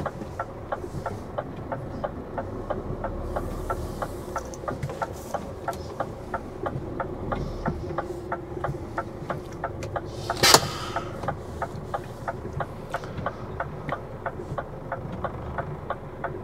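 Lorry cab with the diesel engine idling, under a steady, even ticking of about three ticks a second. One sharp knock about ten seconds in.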